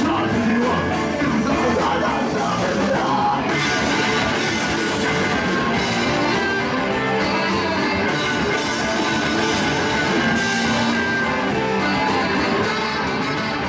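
Live ska-punk band playing loudly: distorted electric guitars, bass and drums with a brass section of trombones and saxophone, and a voice singing over it.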